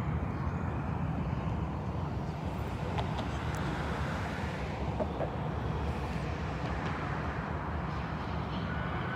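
Steady, low outdoor rumble of vehicle and street noise. A faint steady tone, likely the start of a siren, comes in near the end.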